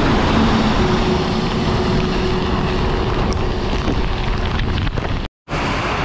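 Strong wind buffeting the microphone over heavy rain: a steady, loud rush that cuts out for a moment about five seconds in.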